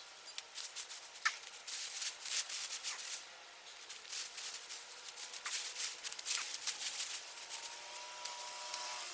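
Garden soil being dug through in search of potatoes: irregular rustling and gritty scraping.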